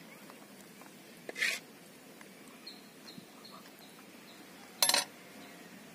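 Quiet outdoor background in which a bird gives a run of short, high chirps in the middle, with two brief noisy sounds, the second near the end louder and sharper.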